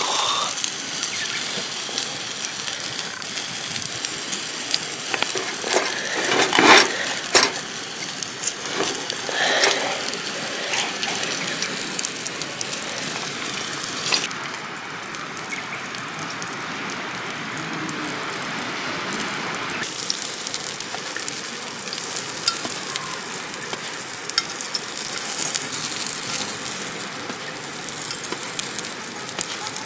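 Steak sizzling as it sears over a campfire: a steady hiss with scattered sharp pops, duller and a little quieter for a few seconds around the middle.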